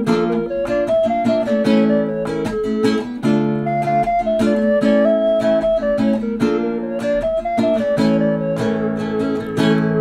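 Nylon-string classical guitar played solo, picking a stepping melody over chords in an instrumental break of a new türkü-style song, with no singing.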